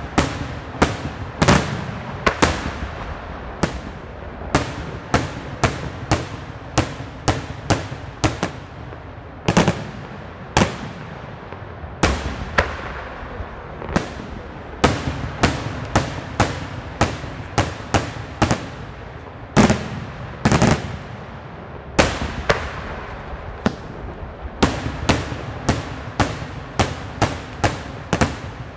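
Daytime aerial fireworks going off in a rapid, irregular string of sharp bangs, about one to three a second, each with a trailing echo.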